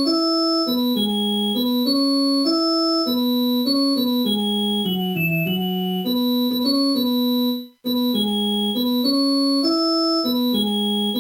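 Stock MediaTek (MTK) phone ringtone played by the phone's built-in MIDI synthesizer: a short, keyboard-like electronic melody with chords. Near the end it cuts out for a moment and starts over from the beginning, looping.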